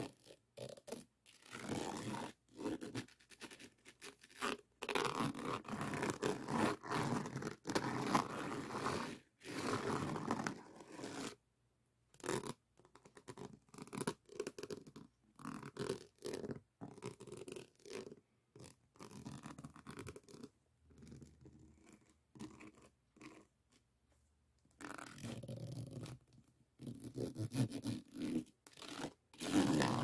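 A plastic diamond-painting pen scraping and tapping across the rows of faceted resin drills on a finished diamond painting, in irregular dry strokes with short pauses, one of them almost silent a little before the middle.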